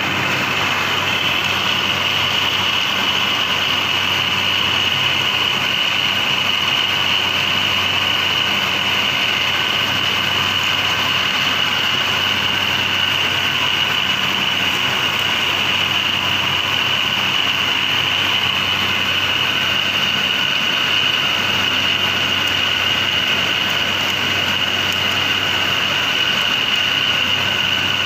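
Paper straw packing machine running steadily, a constant high whine over a low hum.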